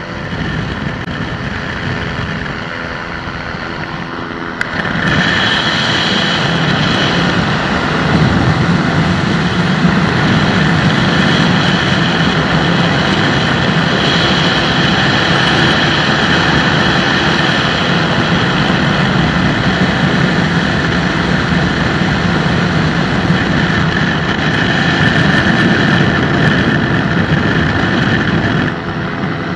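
Microlight aircraft's engine and propeller running steadily in cruise, mixed with wind rush, heard from on board. The sound steps up in loudness about five seconds in and drops back just before the end.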